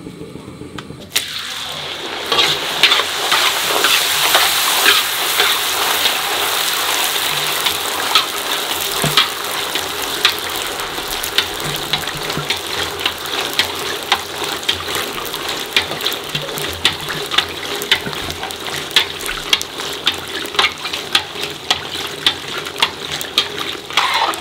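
Fuchka (pani puri) dough rounds deep-frying in a kadai of oil. The sizzle starts suddenly about a second in as they hit the oil, is loudest over the next few seconds, then settles to a steady hiss with frequent crackling pops as the puris puff up.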